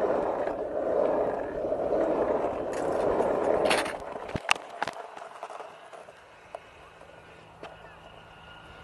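Skateboard wheels rolling over asphalt with a steady rumble, then the board stopping with a few sharp clacks about four seconds in.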